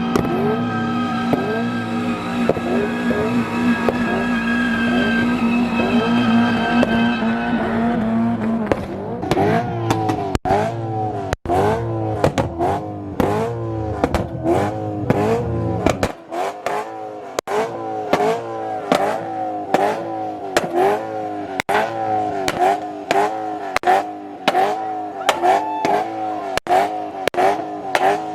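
Car engine revved over and over in quick bursts, each rev rising and falling in pitch about twice a second, with sharp pops and some tyre squeal. The sound changes abruptly a third and about halfway through.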